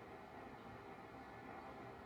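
Faint, steady background noise with no distinct event: room tone.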